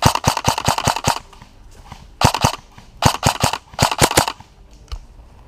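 AR-15-style airsoft electric gun (AEG) firing four bursts of rapid shots: a longer burst of about eight shots, then three shorter bursts of three to five shots, about a second apart.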